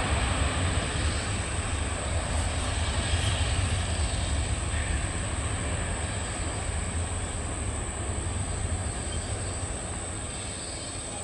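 Jet engines of a Citilink Cargo airliner rolling along the runway: a steady low rumble that slowly fades. A thin, steady high whine runs above it.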